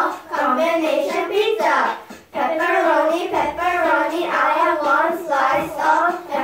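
A small group of young children singing a song together, in phrases with a short pause about two seconds in.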